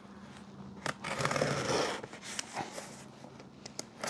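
Utility knife blade slitting the packing tape along the seam of a cardboard shipping box. It makes a slicing sound for about a second, then a few light ticks and scratches as the blade moves on along the tape.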